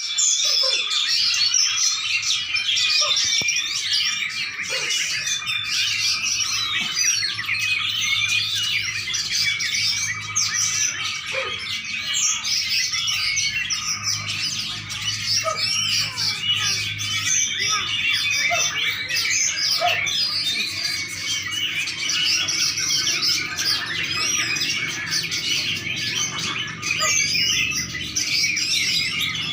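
A small songbird, the 'pesisian', singing a dense, fast, continuous run of chirps and trills without a break.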